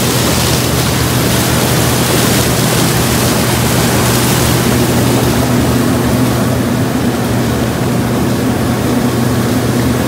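Case IH 2366 combine harvesting, its diesel engine and machinery running steadily: a constant low drone under a wide, even hiss.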